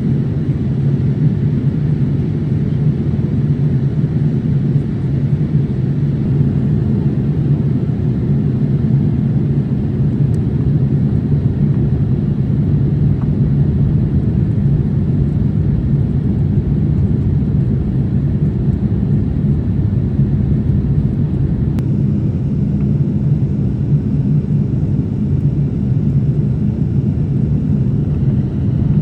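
Steady, even rumble of engine and airflow noise inside the cabin of a Boeing 787-8 in flight, deep and unchanging, with a couple of faint clicks.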